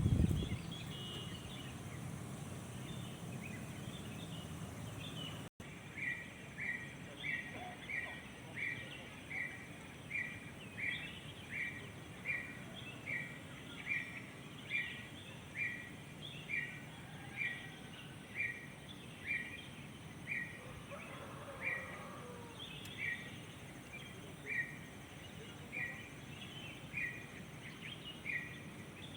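Outdoor morning birdsong: one bird repeats a short, even note a little faster than once a second, while other birds chirp scattered higher notes around it. A low background rumble fills the first few seconds, before a sudden cut.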